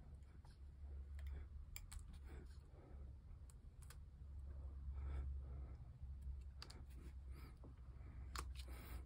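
Light, scattered clicks and taps of fine metal tweezers handling tiny wooden model-ship parts, over a low steady hum.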